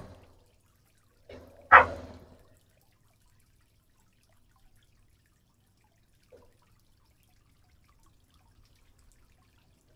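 A single short watery plop about two seconds in, as shrimp food is dropped into the aquarium water; otherwise near silence.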